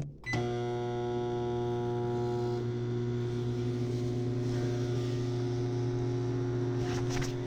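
GE JES1145SH1SS countertop microwave oven starting with a click and then running with a steady electrical hum.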